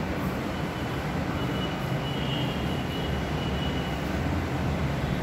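Steady low rumble of transport noise from outside, with a faint thin high whine from about a second and a half in until about four seconds in.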